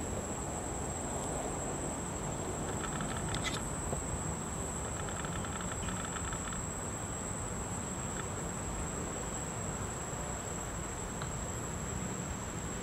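Steady, high-pitched insect drone, with two short rapid chirping trills about three seconds in and again around five to six seconds in, over a low background hum.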